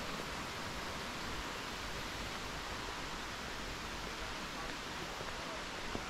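Steady, even rush of flowing water, with no separate events standing out.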